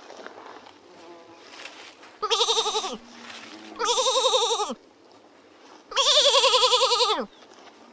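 A farm animal bleating three times: three wavering, quavering calls, the last the longest and loudest.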